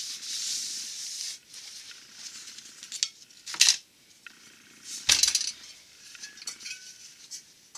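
Rubbing on a steel flex plate and torque converter for about the first second and a half. Then a few sharp metal clinks and clanks as the heavy torque converter is handled and shifted on the flex plate, the loudest about three and a half and five seconds in.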